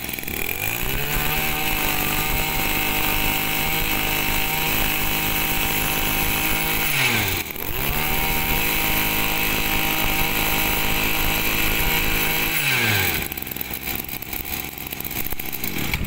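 Tanaka 26cc two-stroke brush cutter engine revved from idle to full throttle and held there. It drops back briefly about seven seconds in, then revs up again and holds. About three seconds before the end it falls back to idle.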